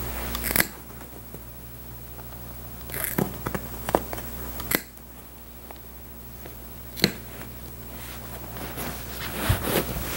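Old upholstery fabric being handled and pulled off a chair seat: soft rustling with a handful of sharp clicks and snaps spread through it. The rustling grows louder near the end.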